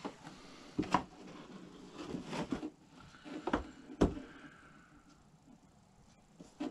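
Cardboard model-kit box lid being handled against a workbench: a few short knocks and rustles, the sharpest about one second and four seconds in.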